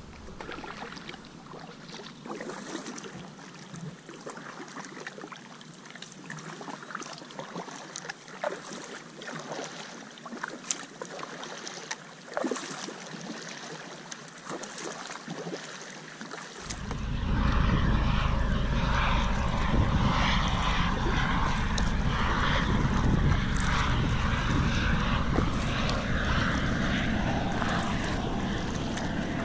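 Kayak paddling: irregular small splashes and drips as the paddle blades dip and lift from the water. A little over halfway through, wind buffeting the microphone comes in suddenly and becomes the loudest sound.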